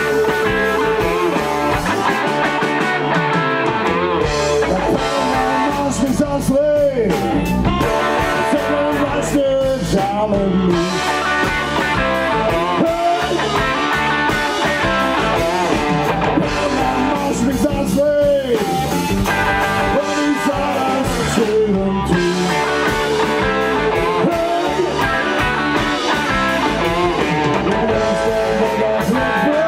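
Live electric blues band playing: electric guitars over bass guitar and drums, with a harmonica played into a microphone and a lead line that bends in pitch.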